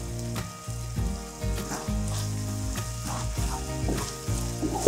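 Thick chilli and tomato spice paste sizzling in oil in a wok while a wooden spatula stirs and scrapes through it, with scattered small knocks of the spatula against the pan.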